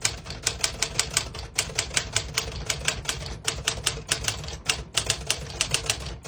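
Keys of a 1958 Smith-Corona Sterling manual portable typewriter typing a sentence at a quick, even pace, about six to eight sharp clacks a second, with short pauses between words.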